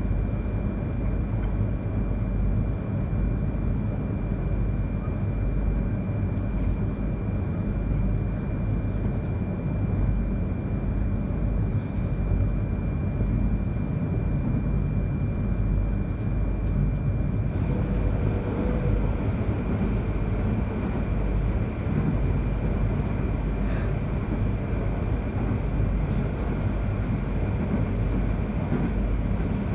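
E3 series Shinkansen train running, heard inside the passenger cabin: a steady low rumble of wheels on rail, with a thin high steady tone that stops a little past halfway and a few faint ticks.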